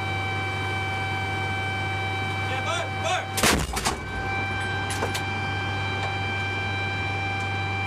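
M109 Paladin self-propelled howitzer firing, heard from inside the turret: one loud boom about three and a half seconds in, then a pair of sharp metallic clanks about a second and a half later. A steady hum and a high whine from the vehicle run underneath.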